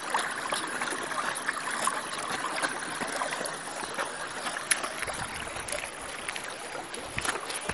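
Leaves and tall grass rustling steadily, with scattered twig snaps and clicks, as hikers push on foot through dense bush.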